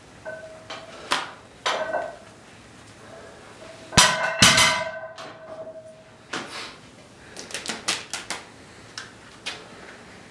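Bent steel bar being handled and unwrapped from its leather pads: light clicks and rustles, then two sharp metallic clanks about four seconds in, with the steel ringing for about two seconds, followed by more light clicking.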